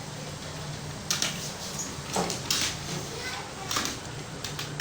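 Computer keyboard keys clicking at an uneven, unhurried pace as a student types a speed test, with a steady low hum underneath.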